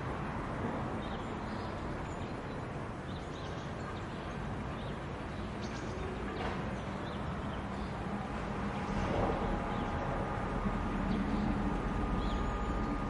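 Steady outdoor background noise with a low rumble and faint, short high chirps now and then. A steady hum joins about eight seconds in.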